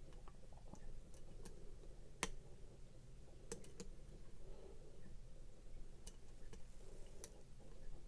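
Lock pick working the pin tumblers of a pin-tumbler challenge lock under tension: faint, irregular metal clicks and ticks, a second or so apart.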